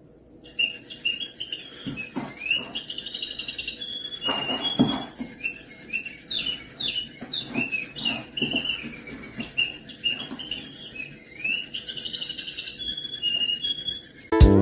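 Busy high-pitched bird-like chirping and tweeting, many quick rising and falling chirps, with a few soft knocks as a cat paws at a small toy on a wooden floor.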